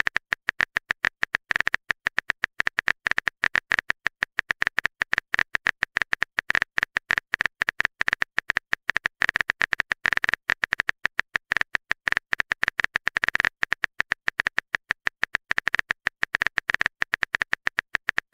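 Typing sound effect: a fast, uneven run of short keyboard clicks, several a second.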